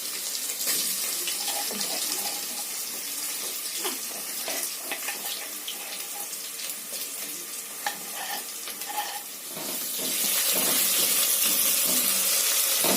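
Chopped onions and ginger-garlic paste sizzling in a pan of hot oil, a steady hiss with scattered small clicks, the sizzle growing louder about ten seconds in.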